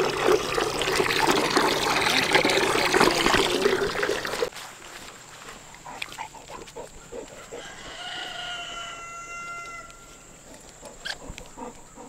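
Golden retriever lapping and slurping water from a running water-line outlet, with the water splashing. About four and a half seconds in it cuts off abruptly, leaving quieter scattered clicks and a brief high tone.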